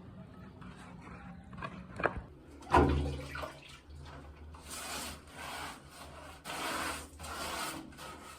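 Cement slurry being stirred in a bucket: a knock about a third of the way in, then repeated scraping strokes about once a second as the mix is worked.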